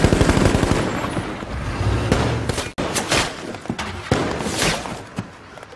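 Sustained gunfire in a firefight: many rifle shots coming fast and overlapping, cut off abruptly about halfway through and then resuming with separate loud shots that thin out and fade near the end.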